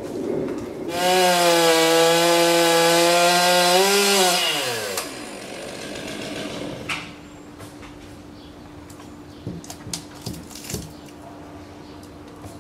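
Chainsaw run at full throttle for about three seconds, then its revs fall away as the throttle is released. A few light knocks follow near the end.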